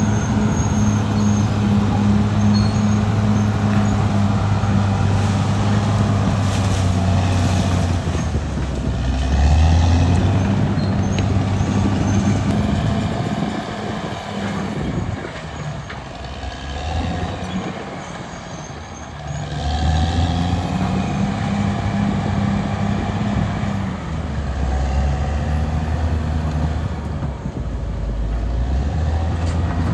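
Caterpillar D6R XL bulldozer's diesel engine running steadily under work. Its sound eases off for several seconds about halfway through, then picks up again.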